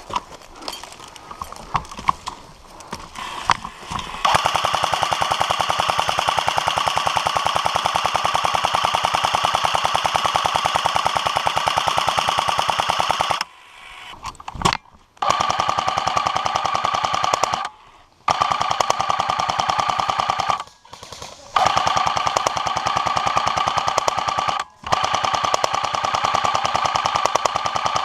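An A&K M249 airsoft electric gun fires full-auto as a fast, even mechanical rattle. After a few scattered clicks, one long burst of about nine seconds is followed by several bursts of a few seconds each, broken by brief pauses. This is suppressing fire on opponents up a hill.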